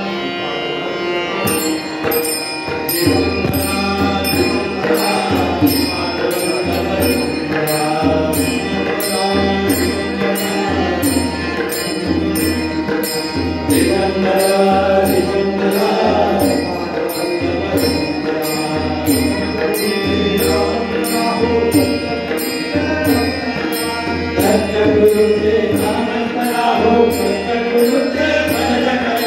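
Hindu devotional bhajan: men singing together. Small hand cymbals start a steady beat about a second and a half in, and a low drum joins a moment later.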